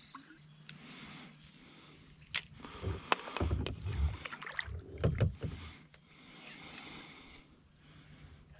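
Knocks and clicks from a kayak: a couple of sharp clicks and several dull hollow bumps against the hull, over faint water and outdoor background.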